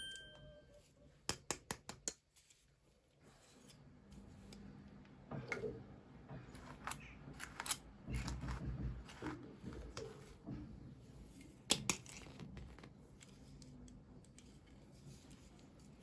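Hands opening toy packaging: a quick run of about six sharp clicks, then scattered clicks and soft rustling of plastic and cardboard. A brief chime sounds at the very start.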